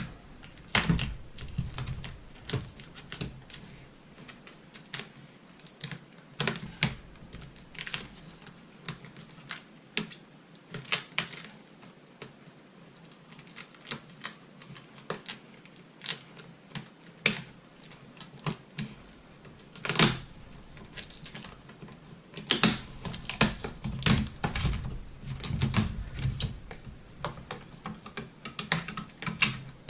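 Irregular small clicks, taps and knocks of hands working on a laptop's LCD screen panel, easing it away from its self-adhesive pads, with a denser run of louder knocks near the end.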